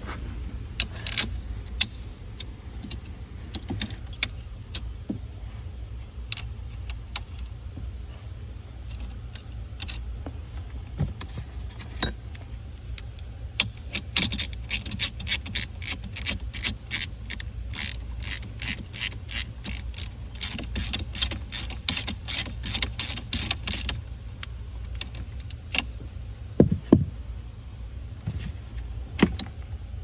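Socket ratchet clicking quickly and evenly, about three clicks a second for some ten seconds from near the middle, as a terminal nut on the car's battery fuse block is turned, with scattered metal clicks and knocks of tool handling around it. A steady low hum runs underneath.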